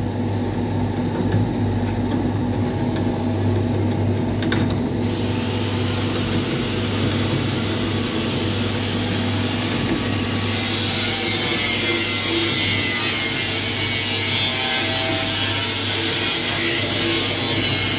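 Electric blower and screw-feeder motor of a rice-husk furnace running: a steady motor hum under a rasping, rushing noise. About five seconds in the noise grows louder and brighter, and it does so again near ten seconds in.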